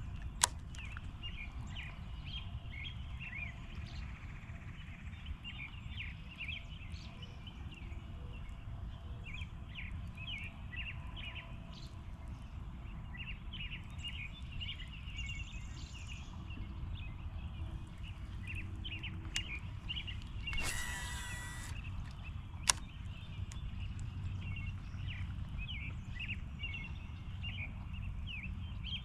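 Small birds chirping and twittering over a steady low rumble. There is a sharp click about half a second in, a brief harsh noise around twenty-one seconds in, and another sharp click shortly after it.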